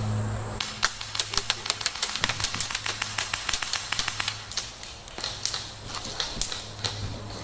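Airsoft gun firing a fast string of shots: a run of sharp clicks starting about a second in, densest in the middle, thinning out by about five seconds.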